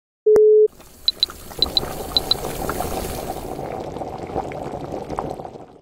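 An induction cooktop gives one short, loud beep as its power button is pressed. Then a pot of noodle soup boils with a steady bubbling and scattered small pops.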